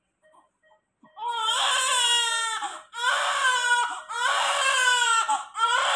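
Newborn baby crying: after about a second of quiet, four long, high-pitched cries in quick succession, each broken off by a short breath.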